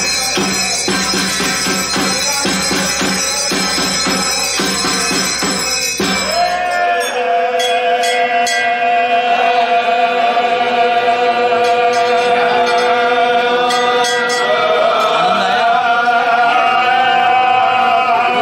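Hindu temple priests chanting an aarti. For about the first six seconds the chant runs over a steady rhythmic beat; after that it settles into long held notes that waver slightly.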